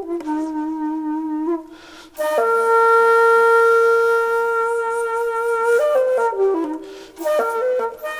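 Solo flute music: a slow melody that pauses briefly, holds one long note for about three seconds, then steps down through several notes.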